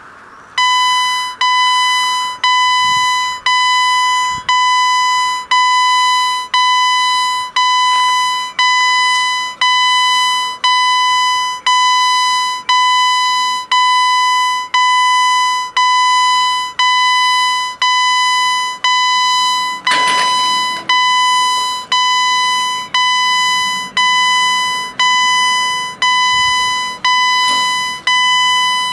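Level-crossing warning bell ringing: a single bell stroke repeated a little more than once a second, each stroke dying away. It starts about half a second in and warns that the crossing is closing for an approaching train. A short rushing noise cuts across it about two-thirds of the way through.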